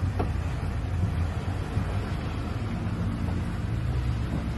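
Chevy C/K 1500 pickup's engine running at low speed under load as the truck wades through a muddy water crossing: a steady low rumble that takes on a clearer humming engine note about two and a half seconds in.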